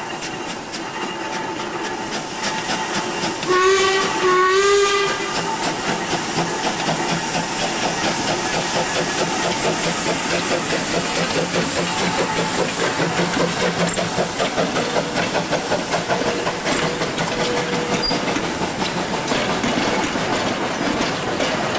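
Steam locomotive W 192 sounding its whistle in two short blasts about four seconds in, over a steady hiss of steam. It then runs with a fast, even beat of exhaust and wheels.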